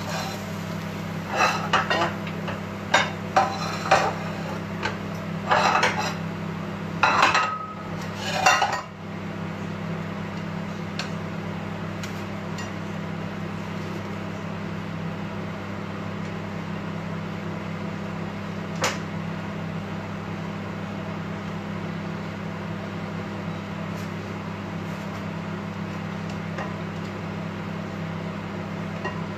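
Tongs clinking and scraping against a stainless steel frying pan and plate as rib eye steak and tomatoes are turned and lifted out: a run of sharp clatters in the first nine seconds, then a single click later. Under it, a steady low hum.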